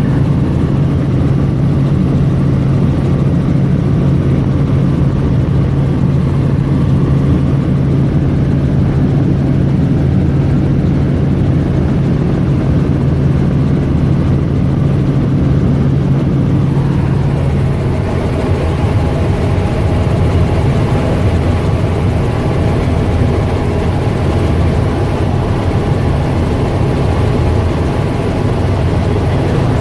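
Helicopter engine and rotor noise heard from on board during flight, loud and continuous. A steady low hum runs through the first part and drops away a little past halfway, leaving a rougher, wider rush.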